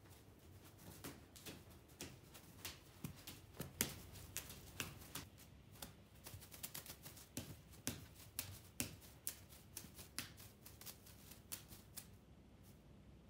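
Faint, irregular quick clicks and taps, several a second, from a cat wand toy's rod and feather lure being flicked and tapped across a fleece blanket; they stop about twelve seconds in.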